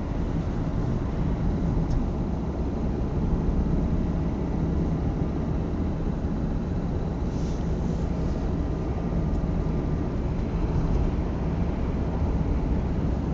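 Car cabin noise while driving: steady low engine and tyre rumble heard from inside the moving car.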